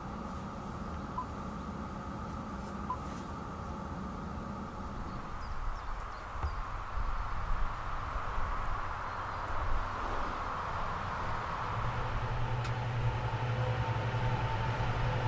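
A steady low hum and outdoor noise, then, from about three-quarters of the way in, a steady low engine note sets in and grows louder: the Jaguar XF's 2.2-litre four-cylinder diesel idling, heard at the rear of the car.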